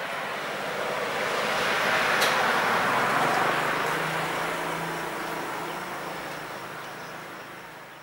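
A vehicle passing by: a rushing noise that builds to its loudest about two to three seconds in, then slowly fades away, with one sharp click near the peak.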